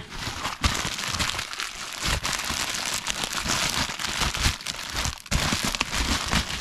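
Packaging crinkling and rustling in continuous irregular crackles as a radio-control transmitter is unwrapped and handled.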